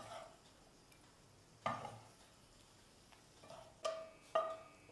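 Wooden spatula knocking and scraping against a frying pan and a ceramic plate while fried appams are pushed out onto the plate. There are a few light knocks, each with a short ring: one about a second and a half in and a small cluster near the end.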